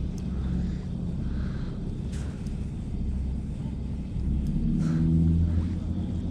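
A low engine rumble, swelling louder about four to five seconds in.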